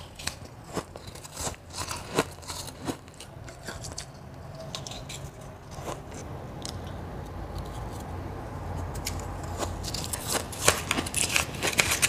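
Close-miked crunching and chewing of a mouthful of powdery crushed ice, with sharp crisp crunches in the first few seconds, a quieter spell in the middle, and dense crunching again near the end.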